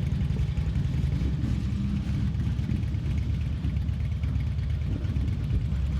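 Low, steady rumble of a slowly moving Norfolk Southern mixed freight train, the train slowing down.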